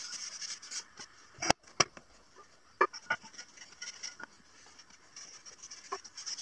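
A wad of paper towel rubbing over wood, a dry brushing hiss in spells at the start and near the end, with a few sharp knocks in between, the loudest two about a second and a half in.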